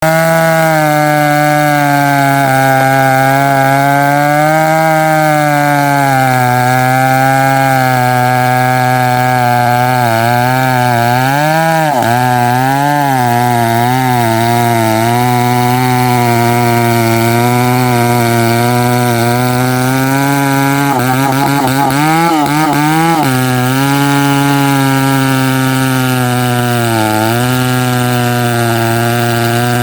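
Chainsaw running at high speed while cutting into a thick tree trunk, its engine pitch wavering under load and dipping briefly a few times.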